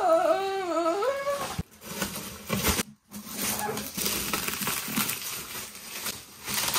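A man's high, wavering drawn-out "aaah" for about the first second and a half, then crinkling of thin plastic film as the protective wrap is peeled off a 3D printer's red translucent cover.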